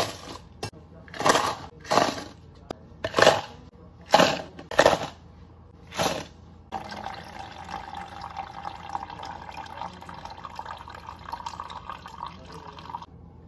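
Ice scooped with a metal scoop and dropped into plastic cups, six rattling clatters in about six seconds. Then coffee poured in a steady stream into a plastic cup of ice for about six seconds, stopping suddenly near the end.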